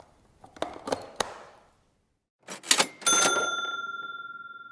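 A few light clicks, then a short rattle and a single bright bell ding that rings and fades over about two seconds: a cash-register ka-ching.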